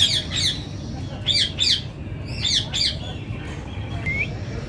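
A bird giving short runs of high chirps, each falling quickly in pitch, several a second, for about the first three seconds, with a single short rising note near the end.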